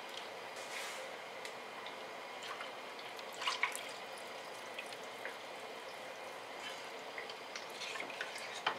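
A pot of soup heating on the stove with a steady hiss while a plastic spoon stirs it, with small clicks. A little past three seconds in, milk is poured in from a measuring cup with a short splash.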